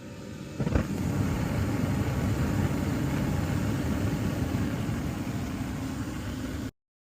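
Gas furnace starting up: a click, then a steady low rumble as it runs, cut off abruptly near the end.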